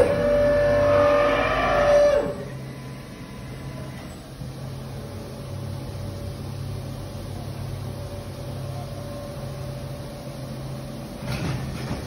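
Ligmatech MDE-110/28/08 feed-through case clamp working through its cycle: a loud rushing sound with a steady tone in it, cutting off about two seconds in, then the machine humming steadily as the cabinet is fed out, with a few knocks near the end.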